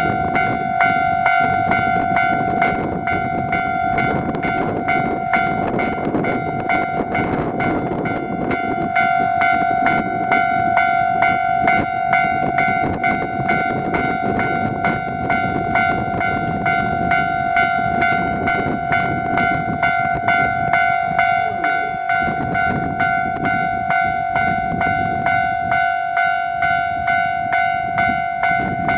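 Railway level crossing warning bell ringing in a steady, evenly repeated clang while a train rumbles through the crossing. The train noise dies away about three-quarters of the way in, leaving the bell ringing alone at about one and a half strokes a second.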